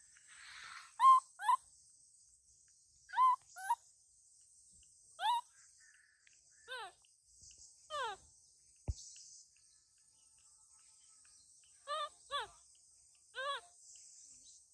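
Baby macaque giving about ten short, high-pitched squeaky calls that fall in pitch, mostly in quick pairs, over a steady high buzz of insects.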